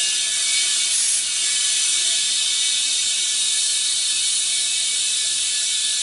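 Compressed air hissing steadily through an air chuck into a small ATV tire's valve stem while airing it up to seat the bead on the rim.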